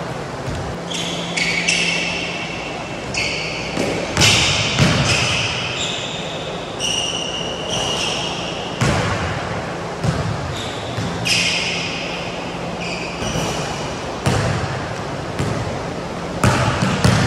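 Basketball bouncing on a hardwood gym floor, with sharp irregular thuds every second or two, mixed with short high-pitched rubber sneaker squeaks, all echoing in a large gymnasium.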